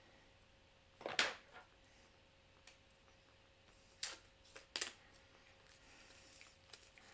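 Game cards being handled and set down on a table: a few short taps and card clicks, the loudest about a second in and two more around four and five seconds in.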